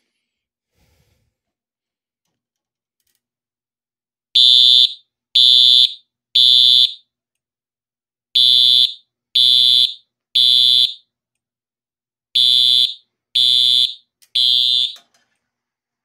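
Simplex TrueAlert fire alarm horn/strobe sounding its synthesized horn tone in the temporal-three evacuation pattern. It gives three short blasts, a pause, and repeats this three times, starting about four seconds in.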